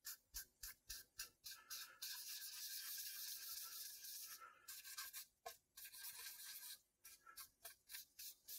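Cloth rag wiped back and forth over the wooden top of a guitar body, spreading leather dye: faint rubbing strokes a few times a second, running together into a steadier stretch of rubbing between about two and four seconds in.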